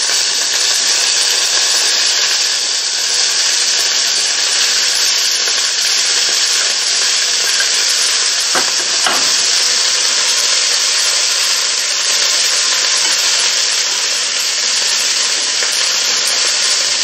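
Broccoli and beef stir-frying in a hot frying pan: a steady sizzle while they are stirred with wooden chopsticks, with a couple of light knocks about halfway through.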